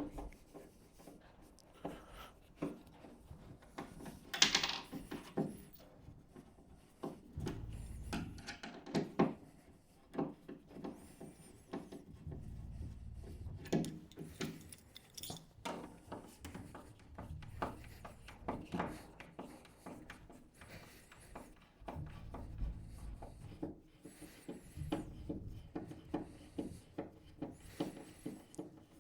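Screws being undone by hand with a crosshead screwdriver from a bed's base board, with scattered irregular clicks, knocks and rubbing as the screwdriver and board are handled.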